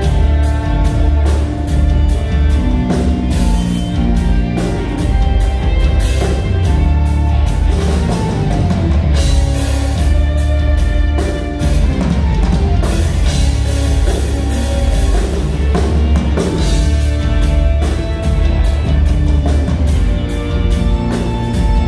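A live rock band playing loud: a drum kit keeping a steady beat under electric guitars, bass and keytar.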